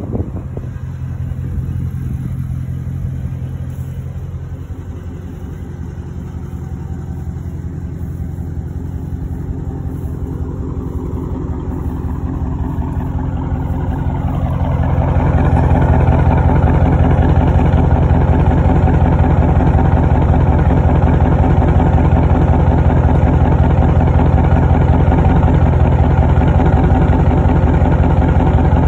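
2020 Dodge Charger Scat Pack Widebody's 6.4-litre HEMI V8 idling steadily through an exhaust with the mid mufflers cut out. It is a deep, even exhaust note that grows much louder about halfway through.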